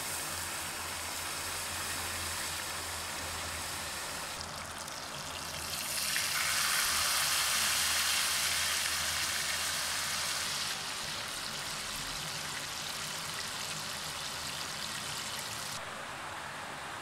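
Steady rush of a shallow rocky river. In the middle, for about five seconds, a louder hiss of fish steaks frying in oil in a pot over a wood fire rises over it.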